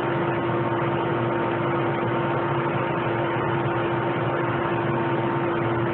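Steady mechanical hum with a constant mid-pitched tone over a hiss, unchanging throughout.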